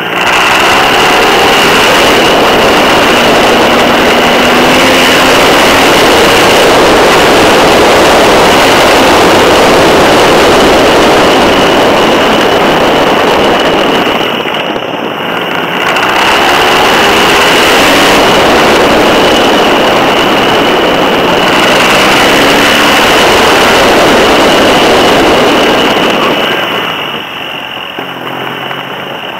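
Wind rushing over the microphone and road noise on a BMW R 1200 GS Adventure riding at speed, with the flat-twin engine underneath, rising in pitch several times as it accelerates. The noise drops briefly about fifteen seconds in and again near the end.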